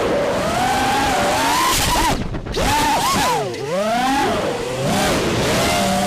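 FPV quadcopter's brushless motors (Racerstar BR2205 2600KV on 5-inch props) whining in flight, the pitch swooping up and down with throttle. They cut out briefly about two seconds in, then spool back up.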